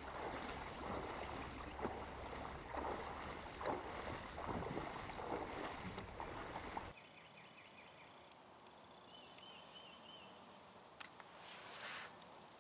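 Shallow river water splashing around a wader's legs and the kayak's hull, uneven and loud, with a low wind rumble on the microphone. About seven seconds in it cuts sharply to a much quieter calm stretch of river, where a few high chirping calls sound.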